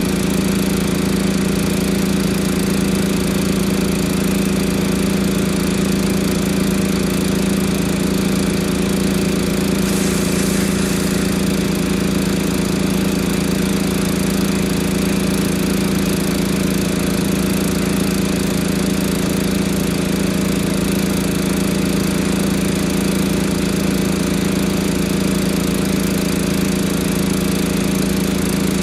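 An engine running steadily at a constant speed, with a strong even hum. A short faint hiss comes about ten seconds in.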